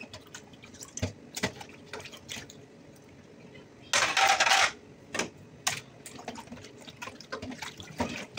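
Dishes being washed by hand in a metal basin of water: scattered clinks and knocks of dishware against the basin and sloshing water. About four seconds in comes a short, louder rush of splashing water.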